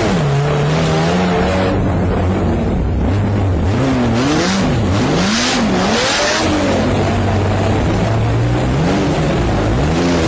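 Sports car engine revving hard again and again, its pitch climbing and dropping several times.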